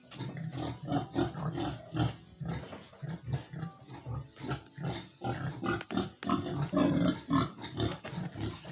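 Domestic pigs grunting in a pen, a rapid run of short, low grunts, several a second.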